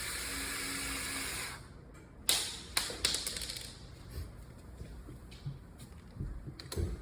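Small cordless drill driving a deadbolt screw for about a second and a half, then stopping, followed by a few sharp clicks and light knocks of metal parts being handled.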